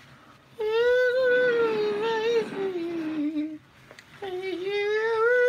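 A voice humming two long, slightly wavering notes, the first sliding down in pitch near its end, the second starting about four seconds in.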